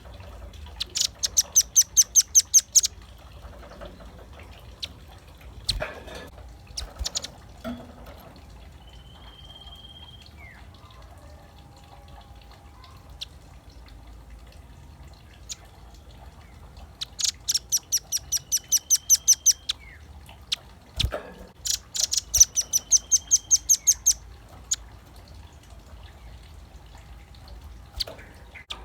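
Velvet-fronted nuthatch calling in three bursts of rapid, evenly spaced sharp high notes, about six a second, near the start and twice in the second half, with a few scattered clicks between.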